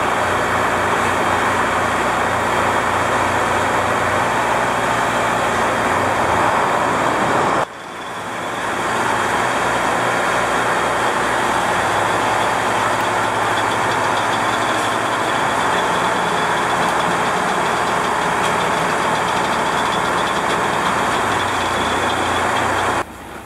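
Sightseeing boat's engine running steadily as the boat comes alongside the pier, with a loud rushing wash of water. It dips sharply about eight seconds in, then builds back.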